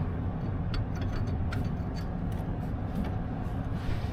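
Steady low machinery rumble, with a few faint light clicks scattered through it.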